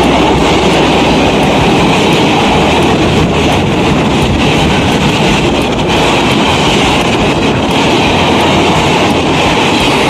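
Passenger express coaches passing close at speed, a loud, steady rush and rumble of wheels running on the rails with some clickety-clack.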